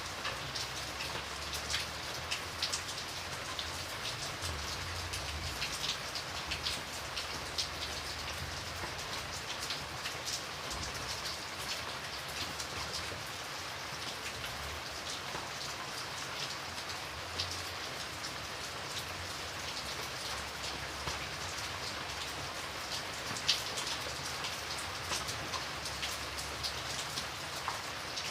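Steady rain falling, a constant hiss with many individual drops ticking sharply close by. A faint low rumble comes and goes underneath.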